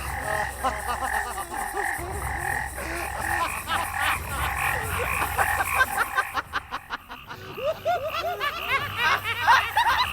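Swamp ambience of many frogs croaking and chirping in short, rapidly repeated calls over a steady low drone.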